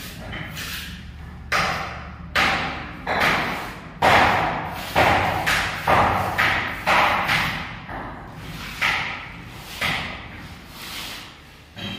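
A mason's steel trowel working cement mortar on a concrete floor: a series of short scraping strokes, each starting sharply and fading quickly, about one or two a second.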